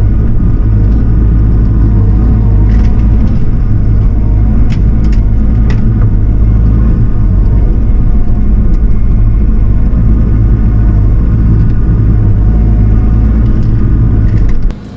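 A heavy-equipment diesel engine running steadily under load, with a few light knocks over it. The engine sound cuts off suddenly near the end.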